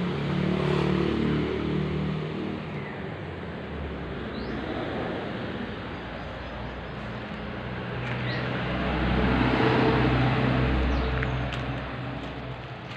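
A motor vehicle's engine passing, its hum and low rumble swelling near the start and again about nine to ten seconds in, with a couple of brief bird chirps.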